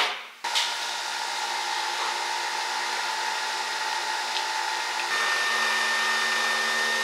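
Nespresso coffee machine running steadily as it brews an espresso shot, a continuous mechanical whir with held tones that shifts in pitch about five seconds in.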